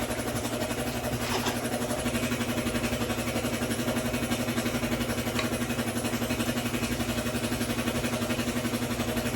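Air compressor running steadily, a motor hum with a fast, even pulsing.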